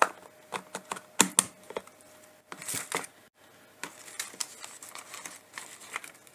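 Paper and card being handled on a tabletop during card-making: scattered sharp taps and clicks, the loudest near the start and about a second in, with a short crinkle of paper around three seconds in.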